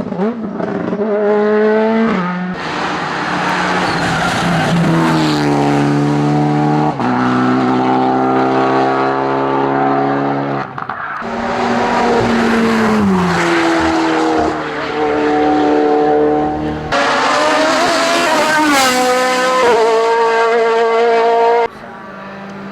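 Racing car engines at full throttle up a hillclimb course, revving up through the gears and falling in pitch on braking and downshifts. The sound changes abruptly several times as short passes of different cars are cut together.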